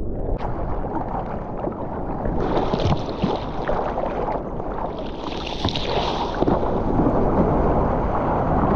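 Seawater splashing and sloshing right at the camera as a surfer paddles a surfboard with arm strokes, with two longer spells of spray hissing, about two and a half and five seconds in.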